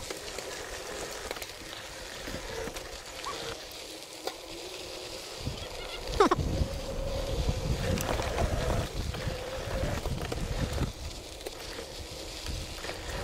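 Mountain bike riding on a dirt and gravel trail: tyres rolling and crunching over the ground, with bumps and rattles from the bike and wind on the microphone. It gets louder and rougher from about six seconds in.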